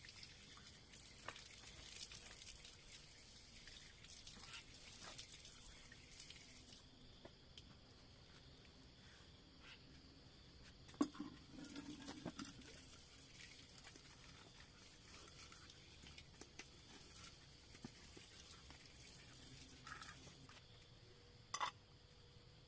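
Near silence with faint scattered ticks and taps; one sharper click about halfway through, followed by a brief low rustle, and a quick double tap near the end.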